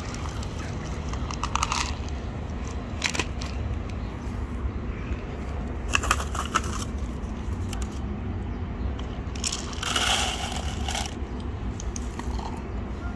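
Dry cat kibble clicking and crunching: pellets rattle out of a plastic cup onto concrete, and kittens chew them, in scattered clusters of sharp clicks. A steady low rumble runs underneath.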